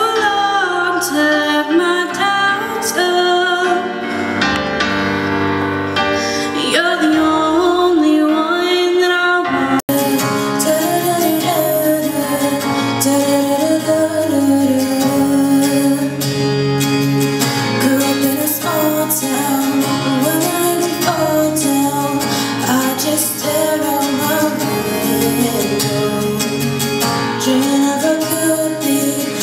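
A young woman singing solo into a handheld microphone over a musical accompaniment. About ten seconds in it cuts abruptly to another young woman singing the same way.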